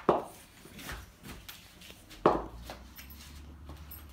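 Cricket practice on a concrete garage floor: a few sharp knocks of ball and bat, each with a short echo, the loudest about two seconds in.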